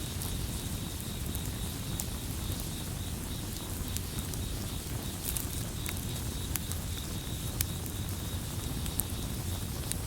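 Campfire crackling: sharp pops scattered irregularly over a steady low rumble of the burning wood, with a thin, steady high cricket trill behind it.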